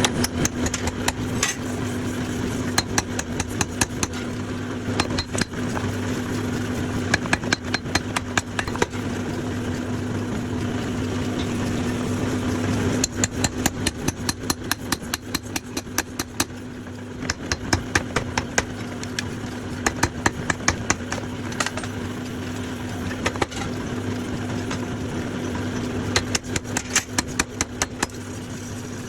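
Bursts of hammer blows on hot steel over an anvil, about two to three strikes a second with short pauses between runs, over a steady machine hum.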